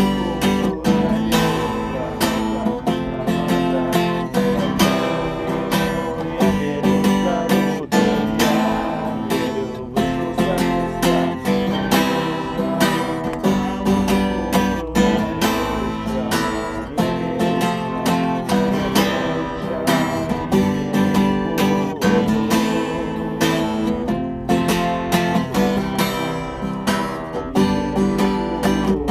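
Acoustic guitar strummed in a steady rhythm, an instrumental passage without singing.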